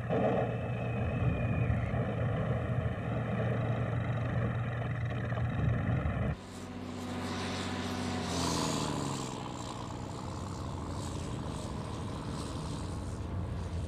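A heavy vehicle engine running at a steady pitch, cut off abruptly about six seconds in. A quieter engine sound follows, falling in pitch, over a hissing clatter.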